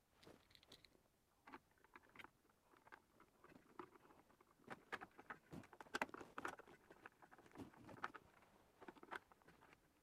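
Faint handling noise of an HDMI cable being pushed with a screwdriver into a Huanuo monitor arm's plastic cable channel: scattered clicks, taps and scrapes, busiest in the middle.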